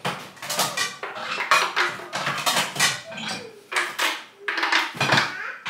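Dishes and cutlery clinking and clattering as they are handled and set down, a run of short sharp knocks.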